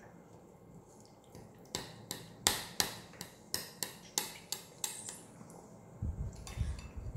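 Metal fork and spoon clinking and scraping against a ceramic plate while fish is cut up and picked at: about a dozen sharp clicks in quick, irregular succession, the loudest about two and a half seconds in. Near the end a low, dull rumble.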